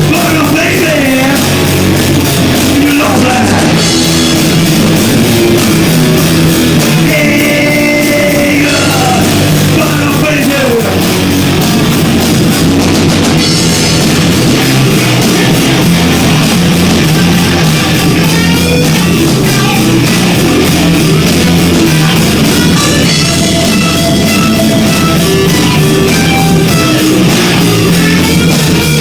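Live rock band playing loud, with drums, electric guitar and bass, recorded through an overdriven phone microphone that distorts the sound.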